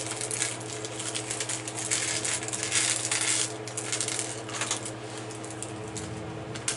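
Small plastic LEGO pieces clicking and clattering against one another as a hand sifts through a loose pile, in a dense run of ticks that thins out near the end. A steady low hum runs underneath.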